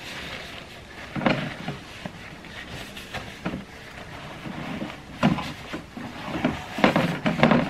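Paper towel rustling as it is wrapped by hand several times around a loaf of bread, with a few louder rustles, one about a second in and several near the end.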